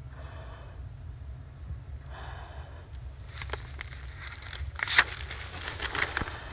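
Two slow breaths through a full-face respirator, followed by rustling, scraping and clicks of someone moving about, with one sharp loud brushing sound about five seconds in. A steady low hum runs underneath.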